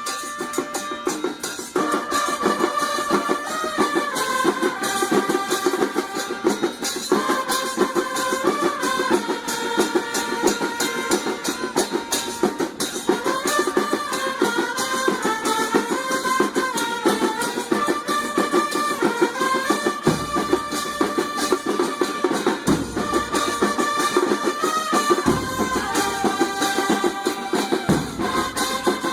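Music: a stepping melody over busy, fast drumming and percussion, with a deep bass coming in and out in the last third.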